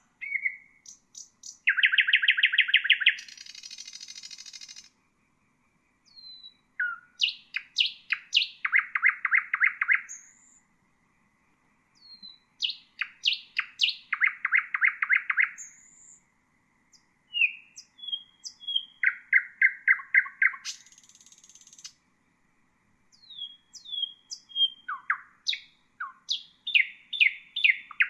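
Nightingale singing: phrases a couple of seconds long, separated by short pauses. Each phrase mixes fast runs of repeated notes with high whistles, short glides and buzzy trills.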